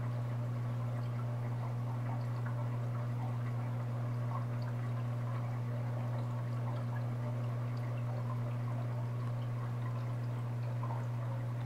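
Aquarium pump running, a steady low hum, with water trickling and small bubbling drips over it.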